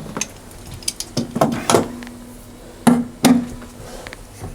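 Several sharp knocks and clunks of metal tools and parts being handled inside a boiler casing, the louder ones about a second apart and leaving a brief ringing hum.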